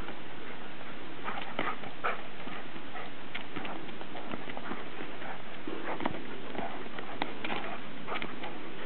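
A standard poodle and a Newfoundland play-fighting: a steady scuffle of scattered knocks and short dog noises.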